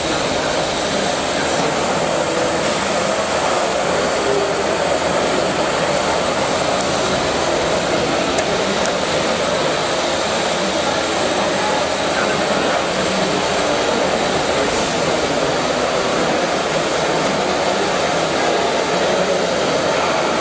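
Steady rushing hiss from a live-steam gauge 1 model of the LMS Turbomotive being fired up to raise steam in its boiler.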